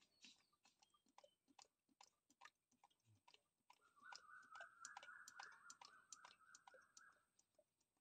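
Near silence: faint scattered ticks throughout, and a faint wavering tone from about four seconds in until about seven seconds in.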